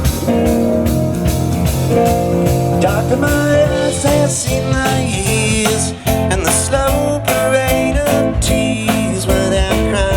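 Live band playing a song, with guitar over a steady beat.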